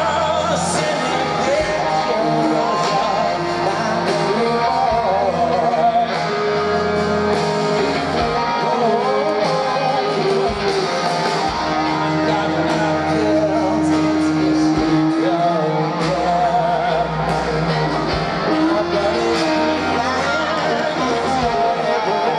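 Rock band playing live: electric guitars, bass and drums with sung vocals, including long held notes. Heard through the PA from within the crowd.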